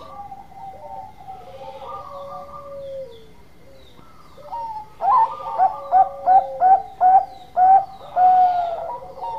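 Zebra dove (Bangkok-line perkutut) cooing: soft coos in the first few seconds, then from about halfway a run of loud clipped notes, about two a second, ending on a longer held coo.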